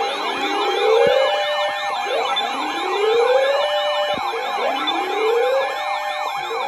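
Several emergency sirens sounding together as an alert signal. A slow wail rises over about two seconds, three times, under faster yelping sweeps and steady high tones.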